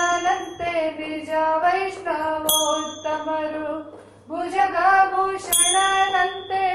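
A high, probably female, voice singing a devotional song in long, held, ornamented notes, with a small bell or cymbal struck twice, about three seconds apart, each strike ringing on.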